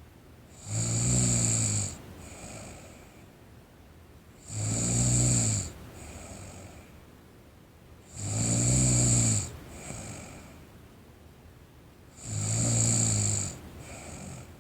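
A sleeping person snoring steadily: four loud snores, each about a second long and coming roughly every four seconds, each followed by a shorter, softer breath.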